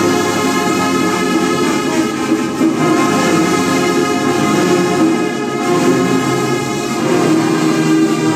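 Large brass band of horns and sousaphones, with drums, playing loud sustained chords together.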